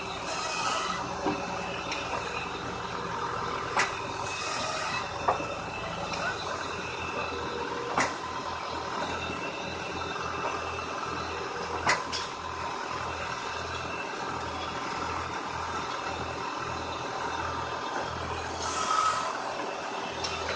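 Tractor engine with a hydraulic log-loading crane running steadily, with a low pulsing from about a third of the way in. Logs knock sharply against each other and the steel log deck several times, and there are a few brief hisses.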